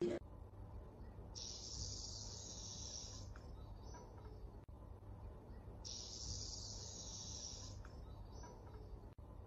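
Faint insect-like chirring from a cat game app on a tablet, coming in stretches of about two seconds roughly every four and a half seconds over a low hum. A brief click right at the start.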